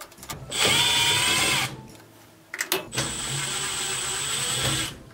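Electric screwdriver motor running in two bursts, about a second and then about two seconds, backing out two Torx screws from a washer's control panel. A couple of short clicks come between the bursts.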